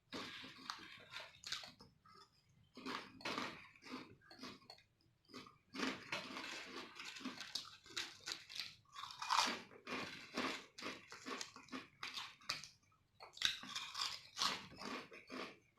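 Potato chips being bitten and chewed close to the microphone: rapid, crisp crunching in bursts, broken by a few short pauses.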